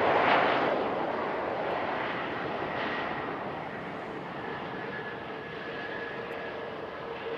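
Jet aircraft engines: a broad rush that is loudest at the start and slowly fades, joined from about four seconds in by a steady two-tone engine whine.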